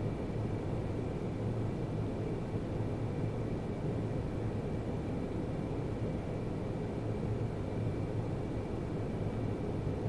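Steady low rumble and hiss of background noise, with a faint high whine.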